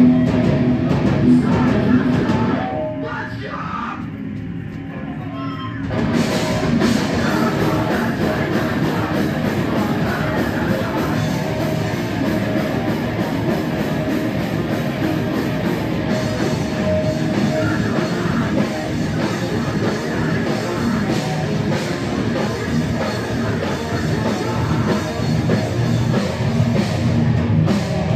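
Hardcore band playing live: distorted electric guitar, bass and drum kit at full volume. About three seconds in the band drops to a thinner, quieter passage, then the full band comes back in around six seconds and keeps going.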